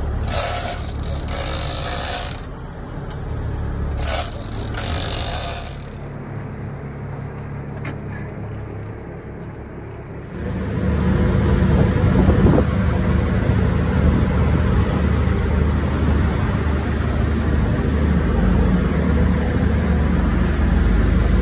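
Boat engine running with a steady low rumble, which becomes louder about ten seconds in. Over the first six seconds, bursts of rushing hiss come and go on top of it.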